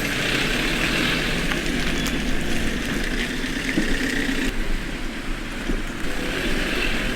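Motor vehicle running, a steady engine rumble and road noise.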